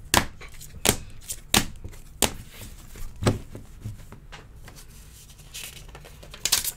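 Hard plastic card cases clicking and knocking against each other as a stack of encased baseball cards is flipped through by hand. There are about half a dozen sharp, irregular clicks, with a louder clatter near the end.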